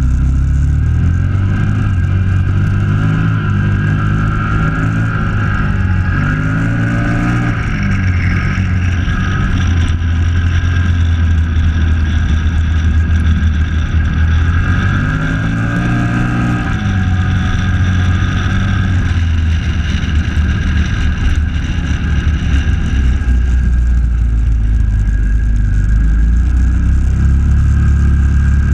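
Off-road quad engine running under load on a muddy, flooded track, revving up and easing back off several times, at about 3, 7 and 16 seconds in. The wheels splash through standing water at the start.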